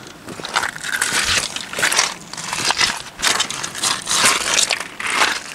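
Footsteps crunching on river gravel, a step about every two-thirds of a second.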